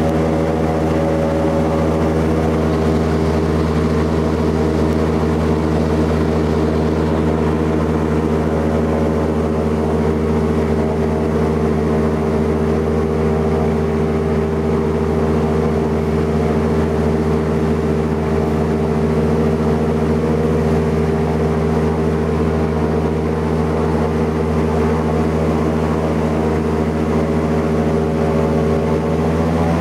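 Boat engine running loudly at a steady, unchanging speed as the boat cruises along the creek.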